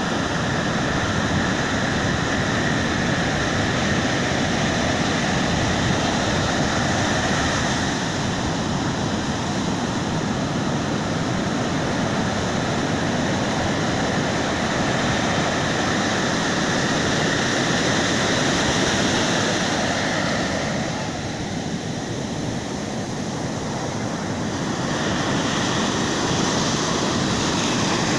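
Ocean surf washing onto a beach as a continuous rush of waves, easing for a few seconds about three-quarters of the way through.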